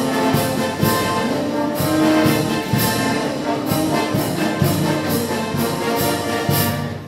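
Brass band music with trombones and trumpets over a steady beat, fading out near the end.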